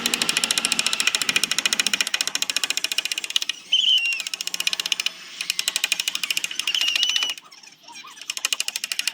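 Power sander working a zelkova root piece during rough sanding: a fast, even rattle with a high whine, breaking off briefly about three and a half seconds in and again shortly before the end.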